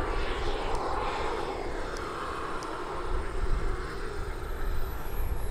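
The twin jet turbines of a large RC Messerschmitt Me 262 model running in flight: a steady rushing whine that sweeps down in pitch in the first couple of seconds as the model passes, with a thin high whistle near the end.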